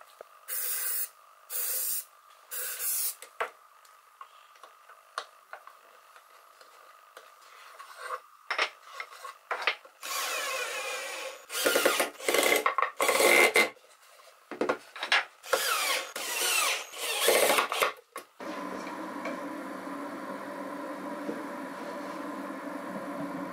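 Three short hisses of an aerosol activator (cooling) spray for quick-setting glue, then a run of loud scraping, rubbing strokes of wood on wood. A steady hum sets in about 18 seconds in.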